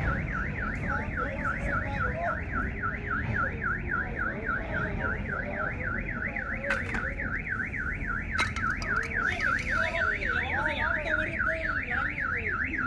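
Car alarm sounding with a fast up-and-down electronic warble, about four sweeps a second, set off when the train struck the parked cars. People talk faintly underneath.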